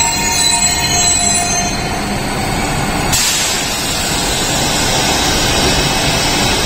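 Bangalore Namma Metro Green Line train running at the platform: a constant rumble with a whining tone that fades within the first couple of seconds, then a hiss that starts abruptly about three seconds in.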